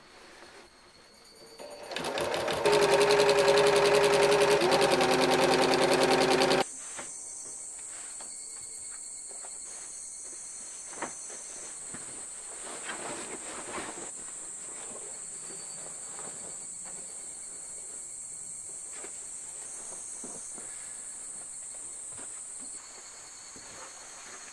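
A Janome 780DX straight-stitch sewing machine starts about two seconds in, stitches fast and evenly for about five seconds, then cuts off suddenly. After that a steady high insect chirring continues, with soft rustles of cotton fabric being handled.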